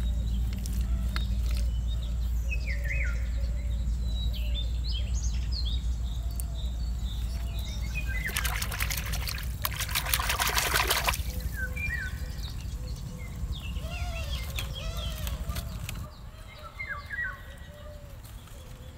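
Hands digging into a waterlogged crab hole in paddy mud: a splashing, trickling burst of wet mud and water from about eight to eleven seconds in, the loudest sound. Birds chirp all the while over a low steady rumble that stops near the end.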